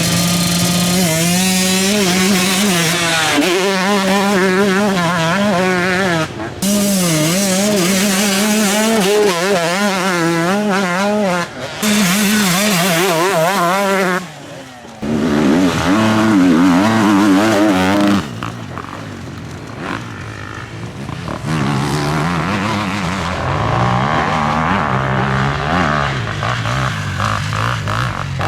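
Off-road enduro motorcycle engines revving up and down constantly as riders work over rough ground, the pitch rising and falling every second or so. The sound breaks off abruptly a few times, and from about two-thirds through the engine note is quieter and lower.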